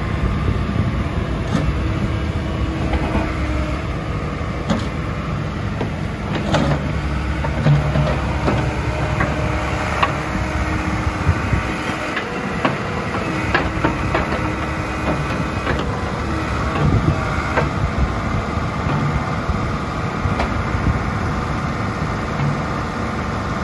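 JCB 8085 ZTS midi excavator's diesel engine running under hydraulic load as the machine works its boom, arm and bucket. Repeated sharp metallic knocks and clanks sound throughout, with short whining tones coming and going, and the engine dips briefly about halfway through.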